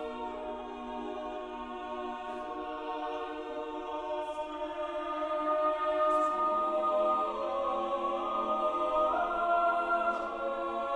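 Slow background music of long sustained chords, shifting to a new chord about six seconds in and growing a little louder.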